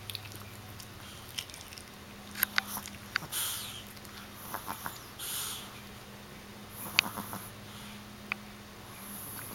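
Overweight chihuahua snoring in its sleep: a raspy, hissy breath about every two seconds, with a few sharp clicks between.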